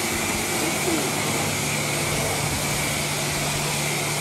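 Self-serve car wash high-pressure wand spraying water, with the bay's pump running: a steady hiss, joined by a low hum about a second in.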